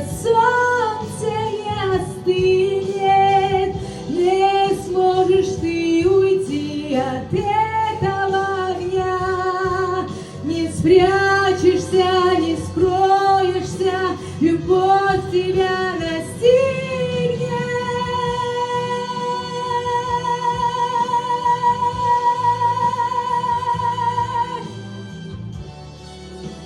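A woman singing a song over instrumental accompaniment. She sings short melodic phrases, then holds one long note with vibrato that ends shortly before the close, leaving only the quieter accompaniment.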